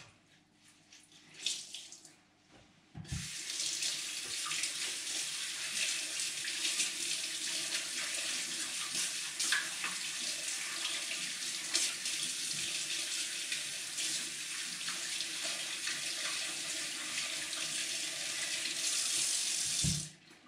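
Kitchen tap running into a sink while hands are washed under the stream. The water comes on abruptly about three seconds in and shuts off near the end.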